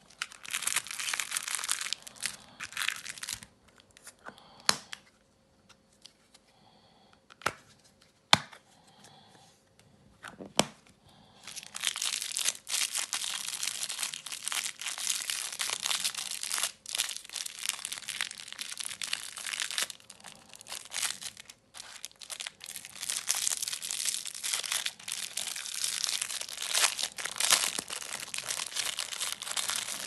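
Thin clear plastic packaging crinkling and tearing as it is handled and pulled apart close to the microphone. There is crinkling for the first few seconds, then a quieter stretch with a few sharp clicks of the plastic case, then nearly steady crinkling through the second half.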